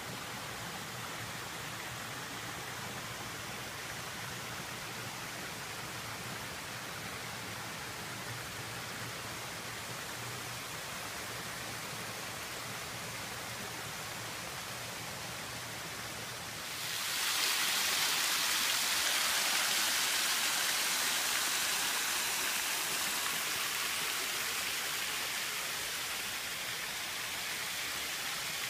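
River water rushing over rock slabs: a steady rushing noise, quieter at first, that suddenly gets louder and brighter about seventeen seconds in and then eases off slightly.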